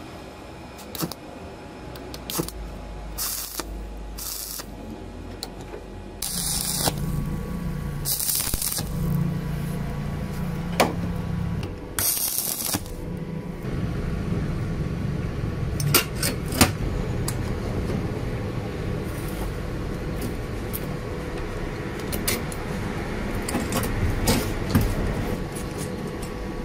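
Steel parts clinking, tapping and scraping as a rusty bar and pipe clamps are handled and fitted together by hand, over a steady low hum that comes in about six seconds in.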